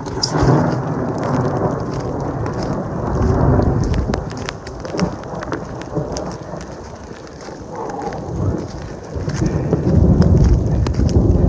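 Rainstorm in forest: rain with a heavy low rumble that swells about three seconds in and again near the end, and many scattered sharp taps.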